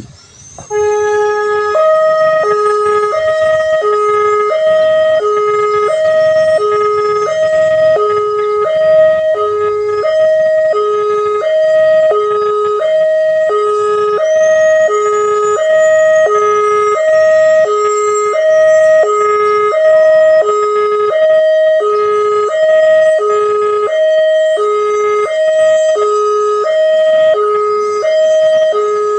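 Railway level-crossing warning alarm sounding: a loud electronic two-tone signal alternating evenly between a higher and a lower pitch, a bit under one high–low cycle per second. It starts suddenly about a second in. It warns that a train is approaching the crossing.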